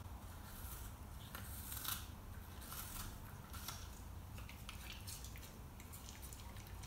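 Young red fox biting and crunching into an apple: a quick, uneven run of short crisp crunches, densest in the first few seconds and thinning out towards the end.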